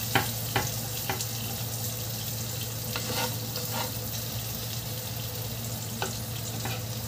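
Chopped garlic and ginger sizzling in hot oil in a nonstick frying pan, with a slotted spatula stirring them and knocking against the pan several times, mostly in the first second and again around three to four seconds in. A steady low hum runs underneath.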